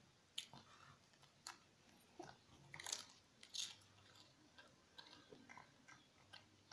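A shih tzu crunching and chewing a cracker: faint, irregular crunches, the sharpest bunched around the middle, then smaller chewing clicks.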